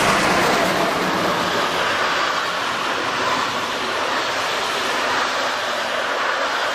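A train of passenger coaches rolling past close by, a steady rolling noise of wheels on the rails that eases slightly after the first second or two.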